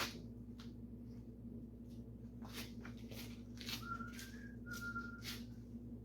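A person whistling two short held notes, over a few light clicks and taps from handling things, with a steady low hum underneath.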